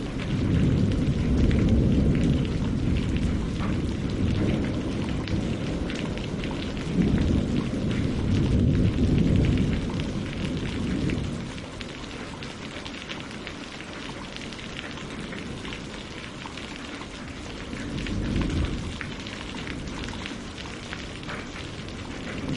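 Steady rain falling on leaves and lake water, a dense patter of drops, with low rolling rumbles of distant thunder that swell and fade: a long one at the start, the loudest about a third of the way in, and a shorter one near the end.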